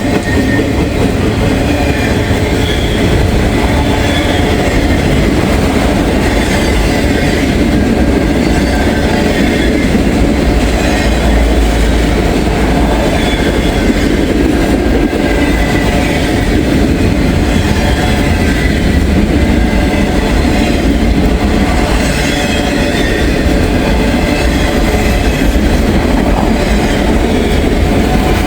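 Freight train cars rolling past close by at speed: a loud, steady rumble of wheels on rail with clickety-clack, and short high-pitched wheel squeals that come and go.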